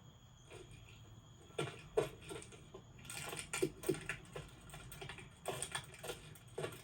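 Irregular light clicks and taps, scattered at first and then coming in quick clusters.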